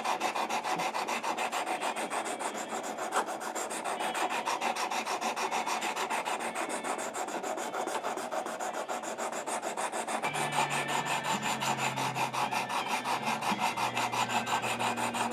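400-grit sharpening stone of a Work Sharp guided sharpener scraping back and forth along a Leatherman Free T4 knife blade in quick, rhythmic strokes. It is grinding off steel to reprofile the factory edge to a new 17-degree angle.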